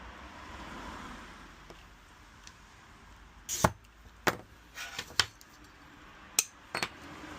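An oiled glass cutter scoring a sheet of fusing glass, a short scratchy hiss, followed by several sharp clicks and taps as the scored glass is snapped and the pieces are handled.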